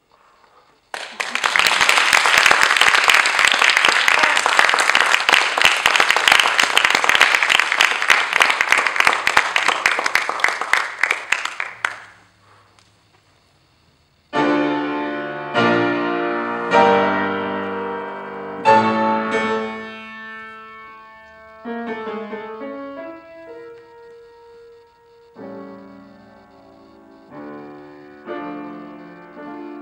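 Audience applauding for about eleven seconds, then a short silence. A piano then plays an introduction of struck chords that ring and fade. A violin joins near the end.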